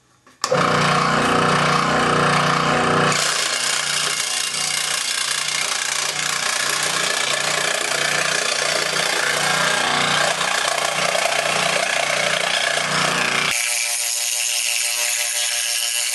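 Delta 15-inch scroll saw running, its blade reciprocating as it cuts through a thin wooden panel. The sound starts abruptly about half a second in and turns to a steadier hum near the end.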